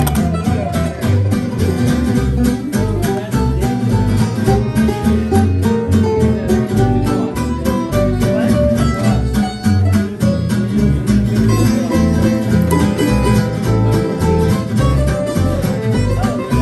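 Acoustic string band playing an instrumental swing passage: bowed fiddle over acoustic guitars strumming a steady beat.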